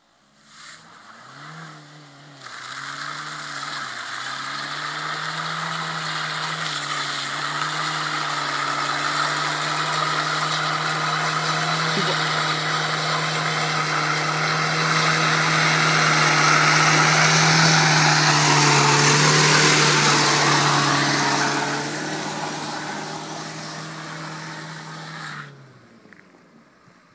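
Škoda Octavia 1.9 TDI four-cylinder turbodiesel, tuned to 81 kW, revved in a few blips and then held at high revs in a burnout, its steady engine note under a loud hiss of Goodyear Eagle F1 tyres spinning on wet asphalt. The sound swells to its loudest past the middle and cuts off sharply a couple of seconds before the end.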